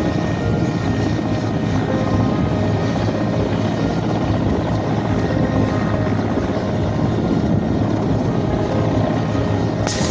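Helicopter running steadily, a dense rotor and engine noise with a low hum.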